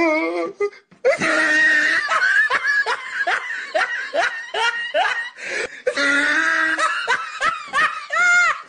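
A person laughing hard in a long run of short repeated laughs, with a brief break just before a second in.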